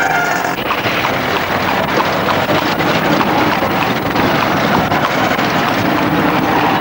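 Loud, steady street traffic noise, with vehicle engines running close by.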